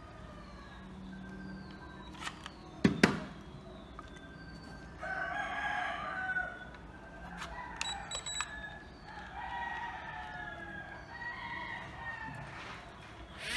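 A rooster crowing in the background, with its strongest crow about five seconds in. A few sharp clicks, the loudest about three seconds in, come from a phone being handled against a plastic controller.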